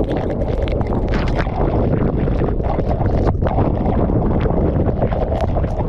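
Tornado wind blasting across the microphone: a loud, steady rumbling roar with many short cracks and rattles through it.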